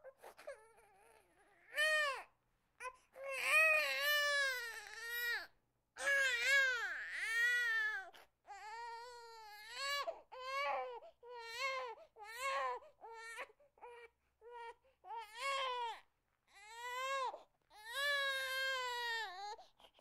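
Infant crying: a string of cries, each rising and falling in pitch, broken by short catches of breath. The longest and loudest cries come about four to seven seconds in.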